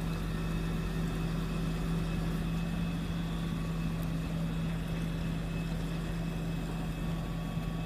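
Tow truck's engine running steadily with a constant low hum while it powers the winch pulling the submerged ute.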